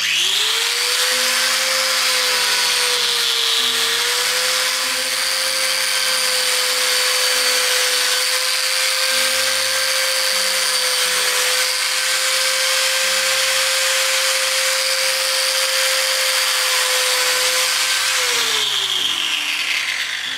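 Angle grinder with a hook-and-loop backing pad and 180-grit sanding disc starting up, running steadily as it sands a rubber-and-plastic recoil pad flush with a wooden rifle stock, its pitch dipping slightly under load a few seconds in. Near the end it is switched off and winds down.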